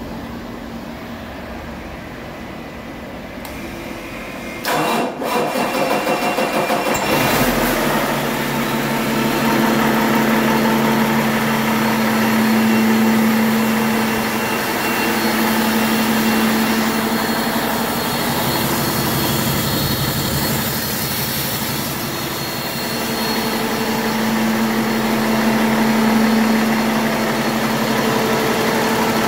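Cummins ISX15 inline-six diesel engine cranking on its starter about five seconds in, catching after a couple of seconds and settling into a steady idle.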